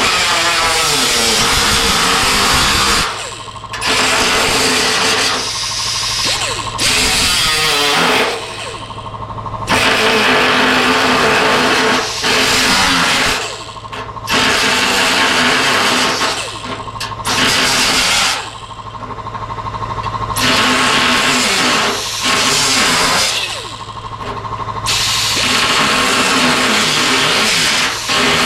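A high-speed power cutting tool cutting through the steel of a car boot lid's corroded bottom edge, run in bursts of a few seconds with about ten short pauses where the motor winds down and back up.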